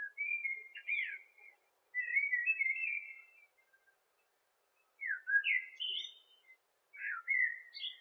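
A songbird singing: four short warbled phrases of chirps and quick sliding whistled notes, each a second or so long, with quiet gaps between them.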